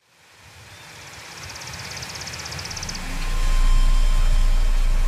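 A hissing rumble fading in from silence and swelling. A brief fast high flutter runs about one to three seconds in, and a deep low hum takes over from about three seconds.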